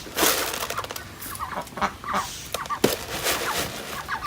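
A flock of domestic ducks quacking repeatedly in short calls while they crowd in to eat grain.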